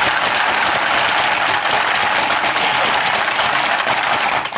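Hungry Hungry Hippos game in full play: the plastic hippos are hammered up and down by their levers, and marbles rattle across the plastic board in a dense, continuous clatter of rapid clicks. The clatter eases off near the end.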